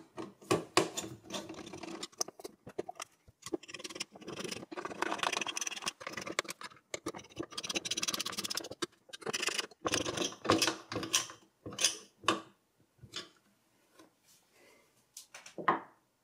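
A screwdriver turning the CPU cooler's mounting screws down into a motherboard: bursts of scraping turns and sharp clicks of metal on metal, thinning to a few light clicks near the end.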